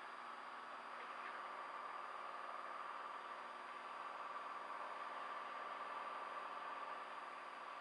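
Steady, faint drone of a Cessna Skylane's piston engine and propeller in cruise, heard through the aviation headset intercom, which cuts most of the low rumble.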